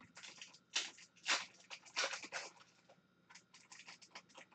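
Foil wrapper of a hockey card pack being torn open: a run of crinkling rips in the first two and a half seconds, then lighter quick crackles as the wrapper is peeled back off the cards.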